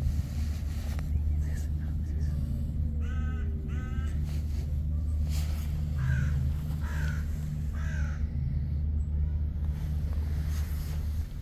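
A crow cawing five times: a quick pair about three seconds in, then three caws about a second apart, over a steady low rumble.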